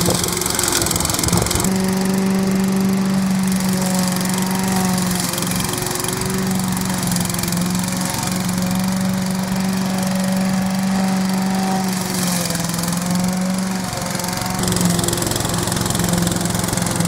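Walk-behind petrol rotary lawn mower running steadily under load as it cuts through long, thick grass. The engine note dips slightly about twelve seconds in, then picks back up.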